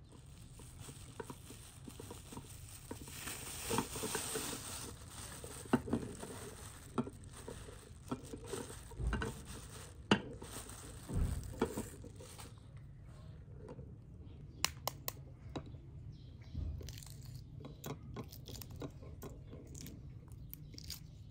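Food preparation by hand: irregular light clicks, taps and crinkling of utensils, dishes and food being handled, over a steady low background.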